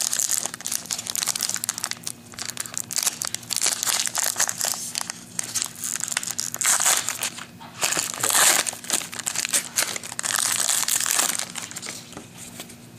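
Foil wrapper of an Upper Deck basketball card pack crinkling on and off as it is handled and torn open, with the loudest crinkles about seven and eight and a half seconds in.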